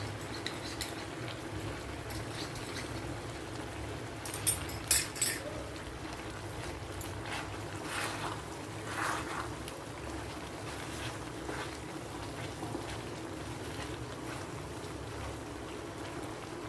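A spoon stirring macaroni in a cooking pan, scraping and knocking against the pan, with a few sharper clinks about four to five seconds in, over a steady low hiss.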